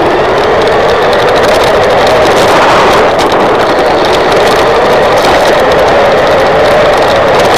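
Tamiya Hornet RC buggy's brushed 540 electric motor and gearbox whining as it drives, the pitch wavering up and down with the throttle, heard from a camera mounted on the car. Under the whine runs a constant rattle of the tyres and chassis on rough, gritty asphalt.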